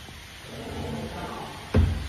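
A single heavy thump near the end: the powder extrusion machine's press head, with its yellow dome, being set down on the stainless steel material tank.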